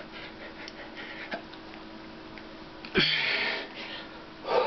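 A man's hard, forceful exhales while straining to bend a steel wrench by hand: one sharp breath about three seconds in and another near the end, over a faint steady hum.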